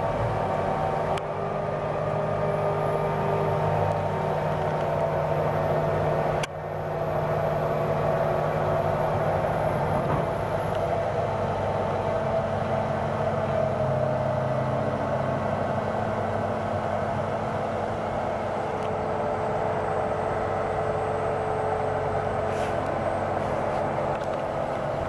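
A Liebherr LTM 1100-5.2 mobile crane's engine runs steadily while it hoists a tower-crane jib section. The drone holds several steady tones and dips briefly about six seconds in.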